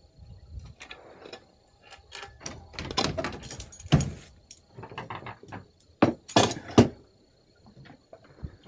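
Irregular knocks, thuds and clatter of gear being handled on a boat deck, with the loudest thuds about four seconds in and three more between six and seven seconds in.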